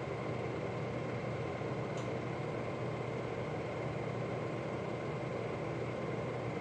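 Steady hum and whir with a faint whine from a pinball machine and the motor turning its space shuttle topper, with one faint click about two seconds in.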